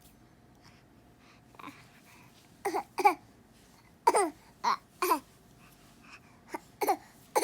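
A baby babbling: a string of short, high vocal sounds, each falling in pitch, coming in small clusters.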